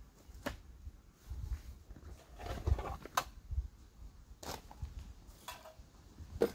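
Camping gear being handled and unpacked from a backpack: rustling of bags and fabric with a few sharp clicks and clatters as items are set down, over a low rumble.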